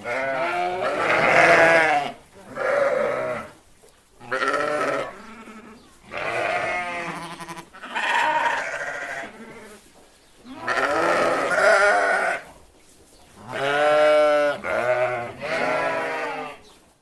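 Sheep bleating over and over: about nine wavering calls, each a second or so long, a second or two apart, some running into one another.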